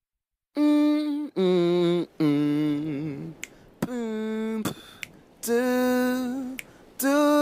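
Singing or humming in a series of long held notes, each about a second, with short breaks between them. Some notes carry two pitches at once, as in harmony, and one wavers with vibrato.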